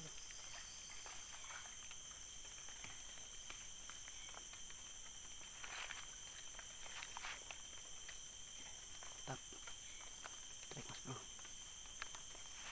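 Steady, high-pitched chorus of insects, with a few soft rustles and taps close by.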